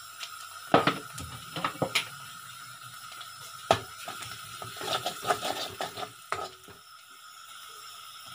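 Metal spoon stirring frying spices in an iron kadai, clinking and scraping against the pan in several short clusters, over a faint steady sizzle of hot oil.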